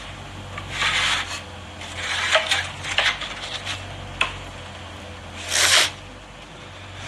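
Handling noise on a hand-held phone's microphone: several short rubbing and scraping bursts with a few sharp clicks, over a low steady hum.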